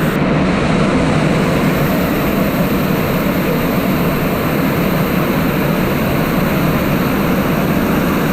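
Waterfall roaring: a loud, steady rush of falling water with no break.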